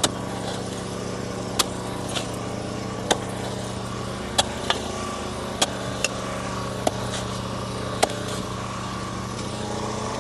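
An engine running steadily at an even pitch, with about ten short sharp knocks or clicks at uneven spacing, roughly one a second.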